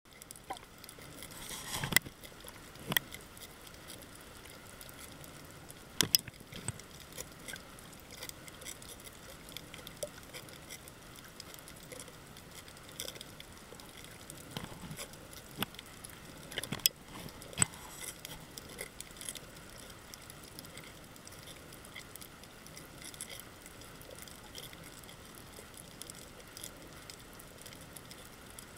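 Underwater reef ambience: a faint steady hiss with scattered sharp clicks, a handful of them louder than the rest.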